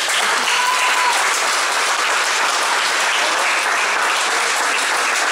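Audience applauding with steady, sustained clapping.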